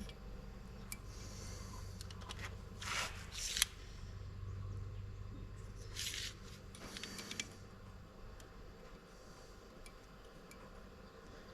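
Small metal measuring tools being handled: a few short scrapes about three seconds in and again around six to seven seconds, with scattered light clicks over a low steady hum.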